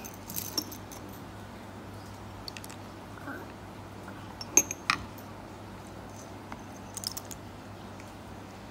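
A few scattered light clicks and taps of dry elbow macaroni and a small ceramic dish being handled, the sharpest about four and a half seconds in, over a faint steady low hum.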